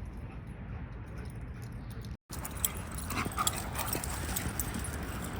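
Dogs playing, with faint dog whimpers and small scuffling noises over a steady low rumble. The sound drops out completely for a moment about two seconds in.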